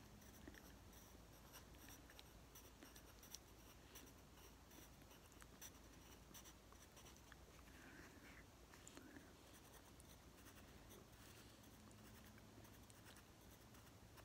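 Faint scratching of a pencil drawing on paper.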